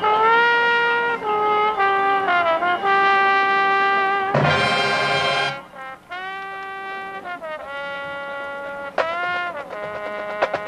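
High school marching band brass playing sustained chords, loud through the first half with a full-ensemble accent about four to five seconds in, then dropping to a softer passage of held notes.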